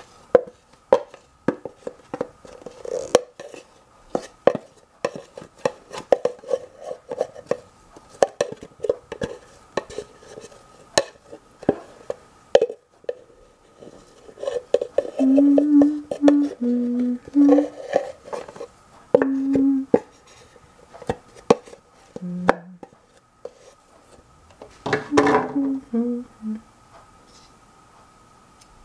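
A metal spoon scraping and clicking against the inside of a nearly empty Nutella jar, working out the last dried-up spread. A little past the middle someone hums a few low notes, and near the end there is one louder scrape.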